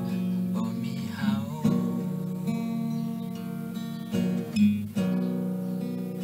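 Song music led by a strummed acoustic guitar, with a brief sliding note about a second in.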